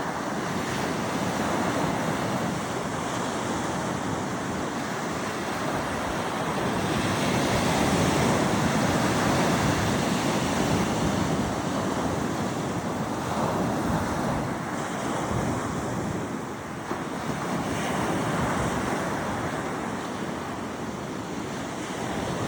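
Ocean waves breaking and washing on a beach, a continuous surf noise that swells and eases, with wind buffeting the microphone.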